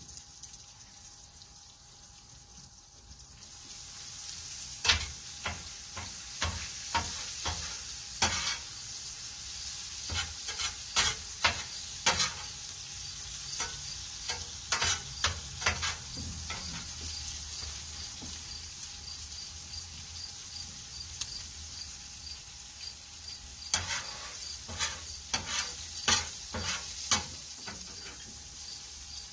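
Food sizzling on a Blackstone flat-top griddle, swelling about three seconds in and holding steady, with repeated sharp clicks and scrapes of a metal utensil against the griddle in two spells.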